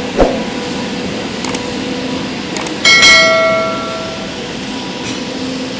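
Bell ding from a YouTube subscribe-button overlay: a couple of faint clicks, then a bright bell strike about three seconds in that rings and fades over a second or so. A steady low hum from the slowly passing goods train runs beneath it.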